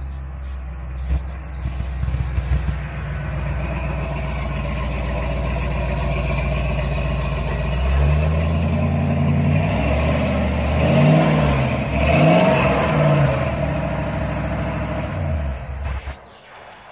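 1953 Chevy pickup's fuel-injected engine running steadily as the truck rolls up, then revved several times in rising and falling sweeps, and shut off near the end.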